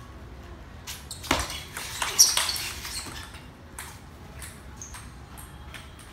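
Table tennis rally: the plastic ball clicking off bats and the table, with sharp squeaks, likely shoes on the wooden floor, loudest about two seconds in. A few lighter, scattered ball taps follow as play stops.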